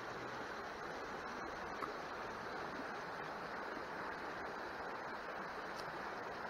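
Shallow creek rippling over rocks, a steady rush of running water, with a short faint high peep about two seconds in.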